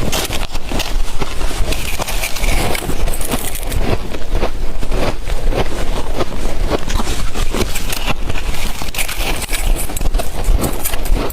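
Shaved ice being chewed close to the microphone: dense, irregular crunching and crackling over a low rumble.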